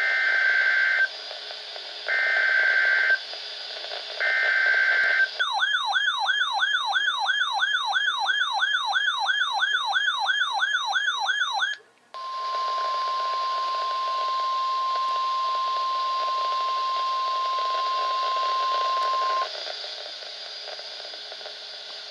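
Emergency Alert System tornado-warning broadcast over NOAA Weather Radio: three short bursts of screechy digital SAME header data, then a warbling siren-like tone sweeping up and down about three times a second. After a brief dropout comes the steady single-pitch weather radio warning alarm tone for about seven seconds, over a faint radio hiss.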